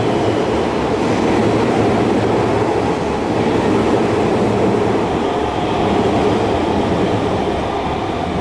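Kintetsu electric train running, heard from inside the passenger car: a steady, loud rumble of wheels on rail that holds without break.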